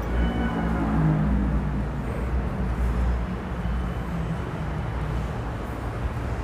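Outdoor background picked up by a lavalier microphone: a steady low rumble, with what sounds like a vehicle engine humming past during the first couple of seconds.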